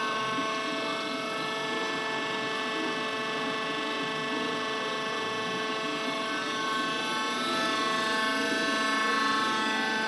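Worm screen centrifuge running at speed, driven by an electric motor through a set of V-belts: a steady machine whine of several held tones over a rushing noise. It is on its test run after the worn rear main bearing locating diameter, which had been causing bad vibration, was sleeved and machined back to size.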